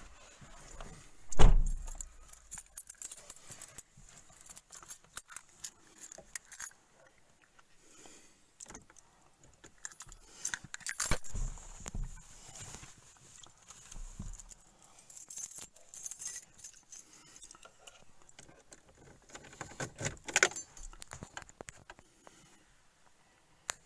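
Car keys jangling on their ring amid scattered clicks and handling knocks, with one loud thump about a second and a half in.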